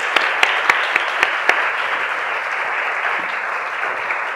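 Audience applauding steadily, with sharp claps from one close pair of hands standing out over the first second and a half.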